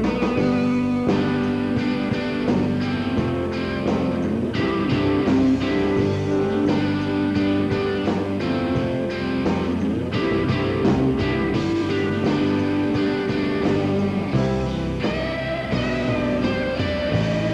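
Instrumental rock music with guitar and a steady beat.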